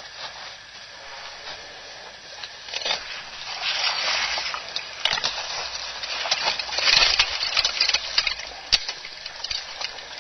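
Elephants moving through dry grass and brush, a rustling crackle with many sharp snaps that grows louder about three seconds in and is loudest around seven to nine seconds in.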